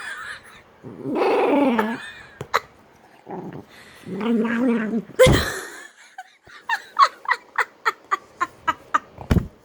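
Dog making weird, wavering vocal noises: two drawn-out ones of about a second each, the second ending in a sudden loud burst.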